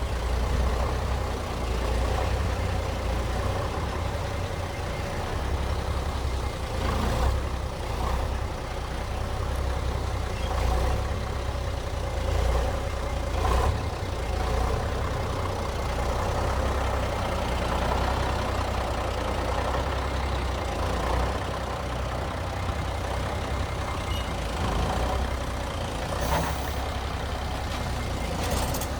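FBW AX40 military truck engine running steadily with a deep low rumble, left running to build up air pressure in its pneumatic system before the truck can be moved. A few brief hisses cut in now and then, the loudest near the end.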